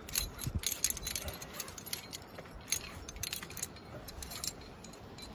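Metal climbing gear (carabiners and protection racked on a harness) jingling and clinking at irregular moments as a climber moves.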